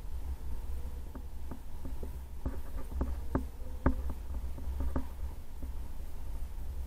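Inline skates rolling over concrete: a steady low rumble, with a run of sharp clicks and ticks from about one to five seconds in.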